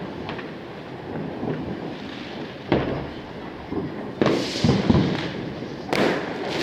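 Fireworks going off across a town: a steady background of distant bangs and crackling, with a sharp bang a little under three seconds in, a cluster of louder bangs from about four to five seconds, and another bang near six seconds.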